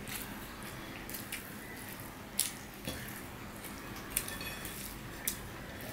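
Rice and curry being mixed and eaten by hand from plates: soft squishing and chewing, broken by four sharp clicks.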